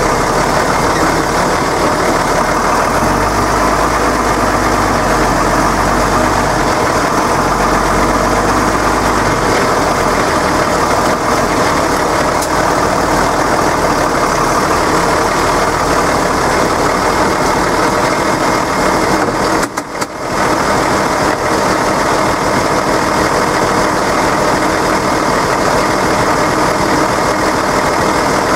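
Deutz-Fahr tractor's diesel engine running steadily, heard from the cab, with a brief dip in level about twenty seconds in.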